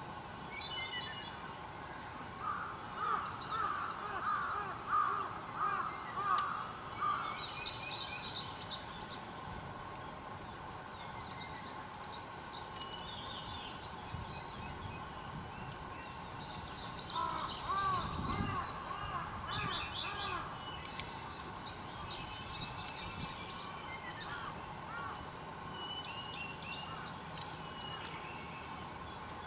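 Several wild birds calling and singing. A run of loud repeated lower calls comes a few seconds in and again past the middle, with high thin songs and chirps throughout, over a faint steady hum.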